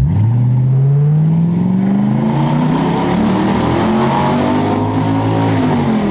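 Straight-piped 3.2-litre V8 of a 2001 Jaguar XJ8, open from the exhaust manifold back, at full throttle from a standstill: a loud, raw engine note that rises steadily in pitch as the car accelerates, then drops as the throttle comes off near the end. It is heard from inside the cabin while the car passes through a tunnel.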